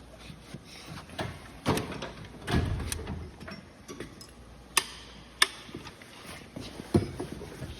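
Scattered metal clinks and knocks of engine parts and tools being handled during bench assembly, with a heavier thud about two and a half seconds in and a few sharp ticks later on.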